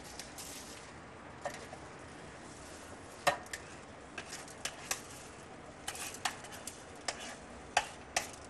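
Uncooked rice being poured and scraped by hand from a plastic bowl into an electric rice cooker's pot of stock, with scattered sharp clicks and taps of the bowl and grains against the pot, the loudest about three seconds in.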